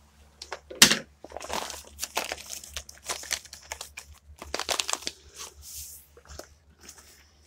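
Plastic food packaging crinkling and rustling as it is handled, in irregular crackles with a sharp, loud crackle about a second in.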